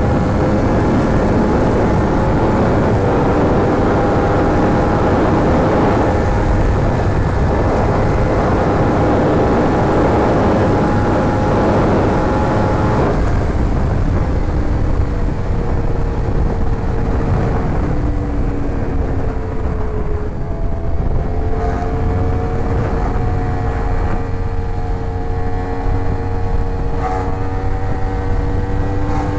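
Yamaha R1 inline-four sportbike engine running at steady cruising revs, with wind noise over the rider's mic. About a third of the way in the revs drop and settle lower, then creep up slightly near the end.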